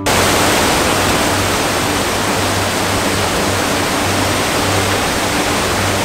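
Small waterfall pouring over boulders into a rocky mountain stream: a loud, steady rush of falling and splashing water.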